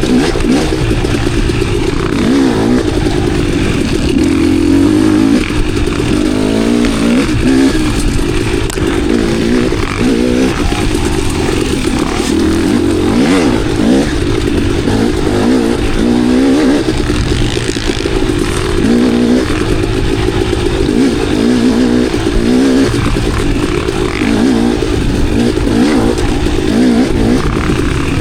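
KTM enduro dirt bike engine under way, its revs rising and falling every second or two as the throttle is worked, with occasional knocks and clatter.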